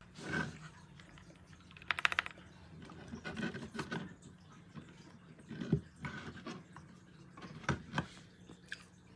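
Faint clicks and taps of typing on a mechanical keyboard, irregular, with a quick run of keystrokes about two seconds in.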